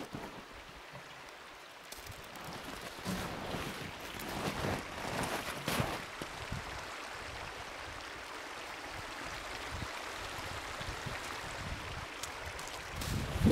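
Footsteps crunching and shuffling in snow, most busily in the first half, over a steady rushing hiss.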